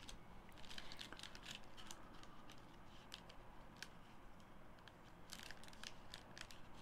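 Faint rustling and light clicks of hockey trading cards being handled and slid through by hand, in two short spells.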